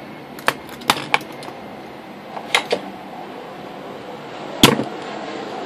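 A handful of sharp clicks and taps from a circuit board and a soldering tool being handled on a wooden workbench, with one louder knock near the end.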